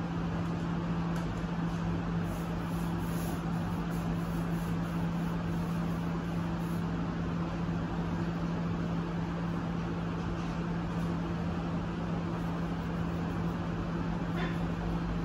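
Steady mechanical hum with a constant low tone over an even hiss, like a running fan or air conditioner.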